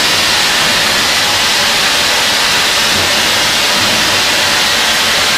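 Burgsmüller L5.4 thread whirling head cutting a steel screw element, its ring of cutters turning around the workpiece. It makes a loud, steady, high hiss with no break.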